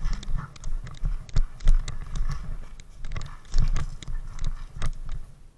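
Irregular knocks, clicks and rustling from a body-worn action camera as the player moves off on foot: footsteps and gear bumping against the camera.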